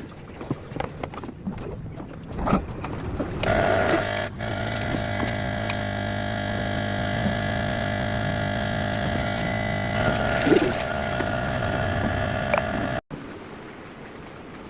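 A few light clicks, then a steady hum made of several fixed tones starts about three and a half seconds in and cuts off abruptly near the end.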